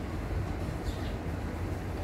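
Small petrol engine of a walk-behind lawn mower running steadily with an even low rumble.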